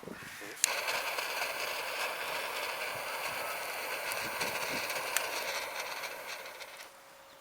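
Campfire catching: a steady rushing hiss that starts suddenly about half a second in, with a few sharp crackles, dying down near the end.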